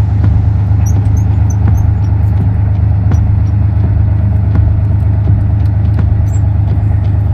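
Engine of a StuG III replica tank running with a steady low drone as the tracked vehicle moves off over dirt, with faint track clicks and occasional faint high squeaks.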